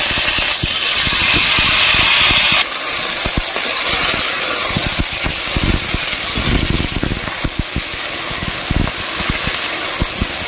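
Pui mituli (Malabar spinach seed spikes and stems) sizzling in hot oil with nigella seeds in a metal kadai, just after being tipped in, while a metal spatula scrapes and stirs them against the pan in quick irregular strokes. The sizzle eases a little about three seconds in.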